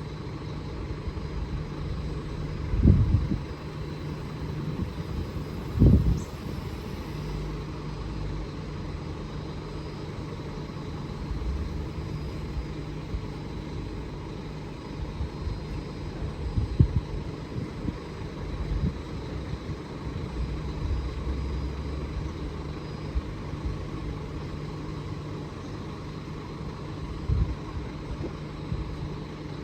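Steady low hum and rumble of an Alstom Comeng electric suburban train, broken by several dull low thumps.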